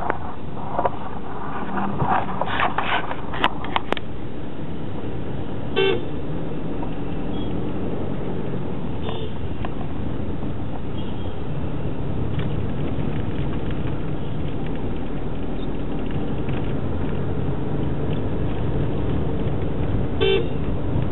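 Steady road and engine noise of a car driving through city traffic, with a short vehicle horn toot about six seconds in and another near the end. A few sharp clicks in the first few seconds.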